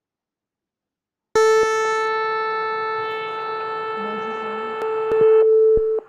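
Simulated buzzer of a PICSimLab microwave-oven project sounding one loud, steady electronic tone that starts abruptly about a second and a half in and holds for about four and a half seconds, marking the end of the preheating cycle. A few faint clicks sound over it near the end.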